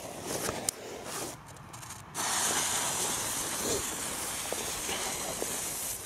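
Keller Leuchttaler, a small ground firework, catching about two seconds in and burning with a steady hiss.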